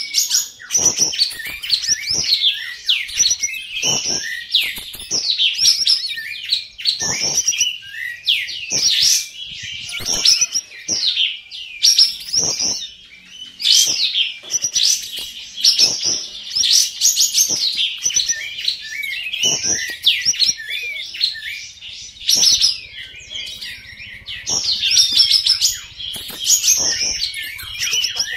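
Caged olive-winged bulbuls (kapas tembak) singing continuously: rapid runs of loud, sweeping whistled notes with hardly a pause. Short knocks sound under the song now and then.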